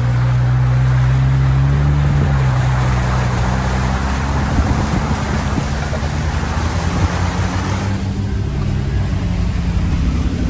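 Off-road vehicle driving through muddy puddles. A steady engine hum, then from about four seconds in a rough, crackling noise of water and mud hitting the body as it bumps along.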